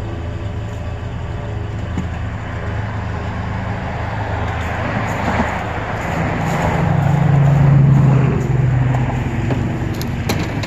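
A vehicle engine running steadily, with a rush of noise that rises and falls in the middle and is loudest about eight seconds in.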